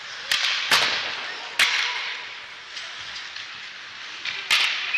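Ice hockey sticks and puck making about four sharp cracks, each ringing out in the rink's echo, over a steady hiss of skates on the ice.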